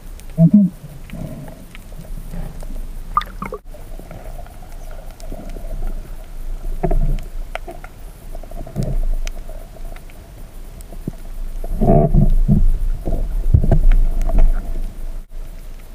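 Underwater sound through an action camera's waterproof housing: a steady low water rumble with irregular muffled gurgles and knocks as the diver moves, swelling louder near the end.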